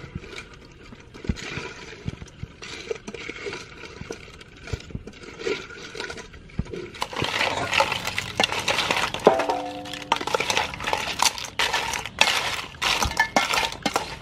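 Blue crab shell pieces clattering and clinking against a stainless steel bowl as they are tossed in sauce with a wooden spoon, getting busier and louder about halfway through, with one brief ring from the bowl.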